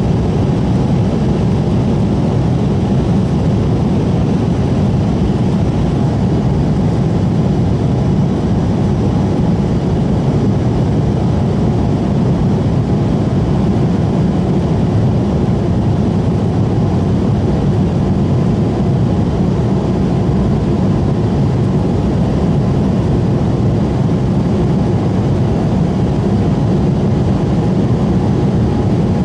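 Steady engine hum and airflow roar heard inside the cabin of an Embraer E190 airliner in flight, from its two GE CF34-10E turbofans; a deep, even drone with a few faint steady tones above it and no change in level.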